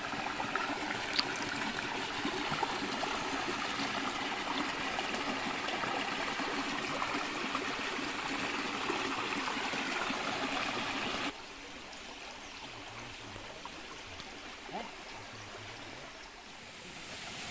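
Water of a small creek flowing and trickling steadily. About eleven seconds in, it drops suddenly to a quieter, softer rush.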